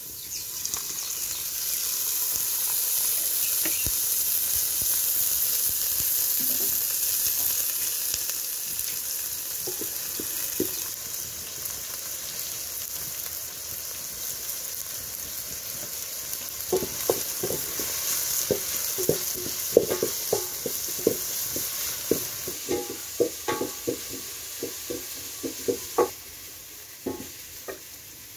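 Chopped spring onions sizzling in hot oil in an aluminium pot; the sizzle starts about half a second in, just as the oil goes in, and is strongest for the first several seconds. From a little past halfway, a spoon stirring the onions knocks and scrapes repeatedly against the pot, each knock with a short metallic ring.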